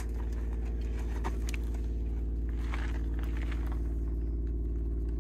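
Portable air compressor running with a steady, unchanging hum, pumping air into a freshly plugged flat tyre.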